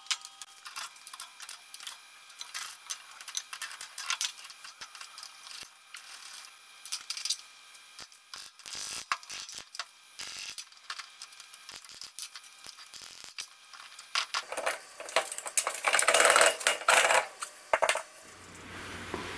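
Hand tools and metal parts clicking, clinking and ratcheting on a rear axle as it is stripped down to pull the differential, in fast-forward. A louder, denser run of rattling comes near the end, then a steady low hum.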